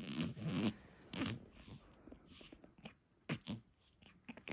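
Persian cat grooming herself close up: wet licking and nibbling at her fur in short, irregular clicks, heaviest in the first second and again in a quick cluster near the end.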